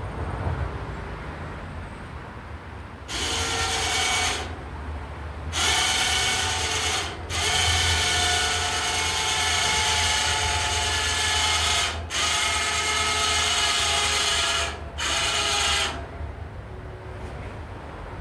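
Battery-powered electric winch of a pickup-truck boat loader hoisting a dinghy: a geared motor whine that starts about three seconds in, pauses briefly, then runs for about ten seconds with a few short stops before cutting off.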